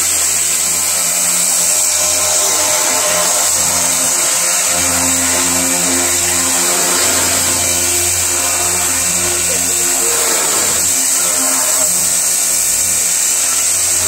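Pressure washer running steadily, its motor humming under the loud hiss of the water jet striking a wire dog crate and the wooden deck.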